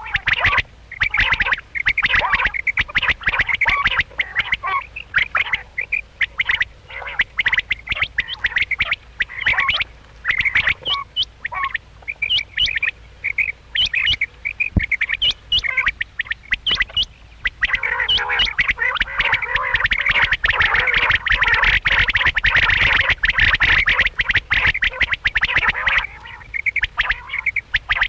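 Quail calling: many short calls in quick succession, overlapping. They thicken into a dense, continuous chorus from about two-thirds of the way in until near the end.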